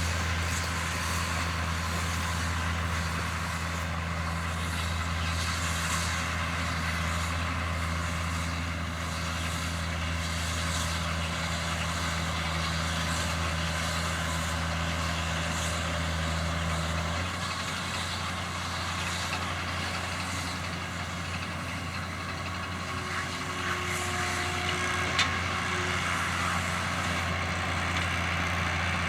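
John Deere 7710 tractor's six-cylinder diesel engine running steadily with a baler in tow, over a constant machinery hiss. The engine note changes about halfway through, and there is a single sharp click near the end.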